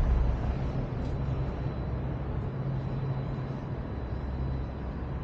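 Steady low rumble of city traffic and urban hum.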